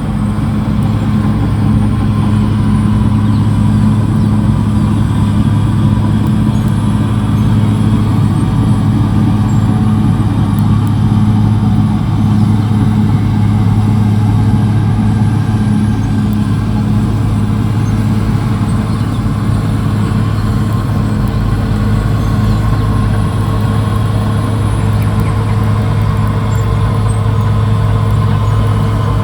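Caterpillar D6R XL bulldozer's diesel engine running steadily at constant revs, a deep, even engine note.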